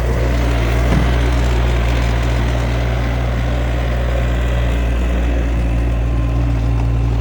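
Mustang 2044 skid steer's engine running steadily with a deep, even hum.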